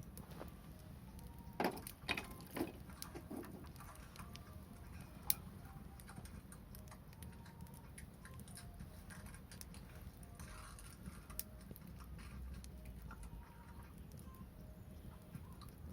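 Wood fire crackling, with scattered sharp pops; several louder pops come in a cluster a couple of seconds in and one more about five seconds in, over a steady low rumble.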